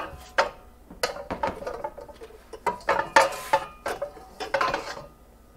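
Wok and other metal pots and pans clanking and knocking as the wok is pulled out from the stored cookware, with a scrape about three seconds in; the clatter dies away near the end.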